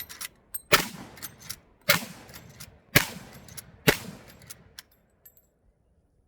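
Four shots from a Marlin 1895 SBL lever-action rifle in .45-70, about a second apart, each with a trailing echo, with lighter clicks between them.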